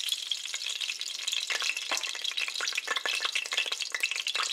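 Cooking oil sizzling and crackling in a preheated stainless steel pot just after being poured in, with many small sharp pops that come thicker from about a second and a half in.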